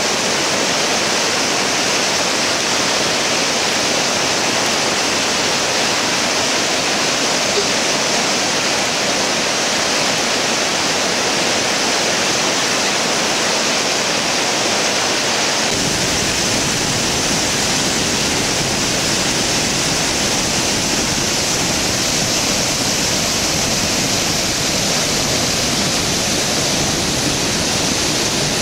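Flood water released from a dam's gates rushing and churning down the Uji River: a steady, loud white-water roar with no pause. About halfway through, a deeper rumble fills in underneath as the plunging discharge is heard close up.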